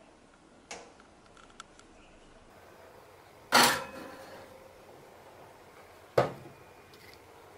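A metal cake pan set down on a countertop oven's wire rack with a sharp clank that rings briefly, then the oven door shut with a second sharp knock about two and a half seconds later. A couple of faint clicks come before.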